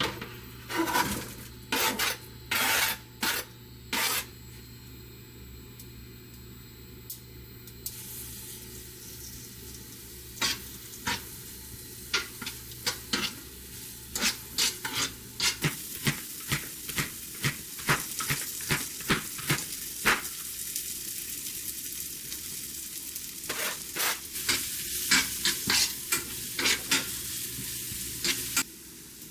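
Food sizzling in a frying pan while a cooking utensil scrapes and taps against the pan in quick, irregular strokes; the sizzle sets in about a quarter of the way in.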